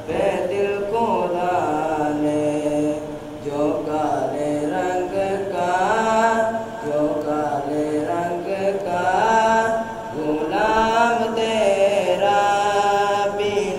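A naat, an Urdu devotional poem, sung unaccompanied by a single voice in long melodic phrases that rise and fall, with brief breaths between them.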